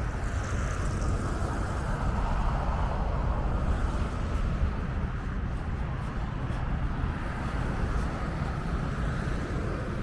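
Steady wind buffeting the microphone: a deep, fluttering rumble with a constant outdoor hiss over it.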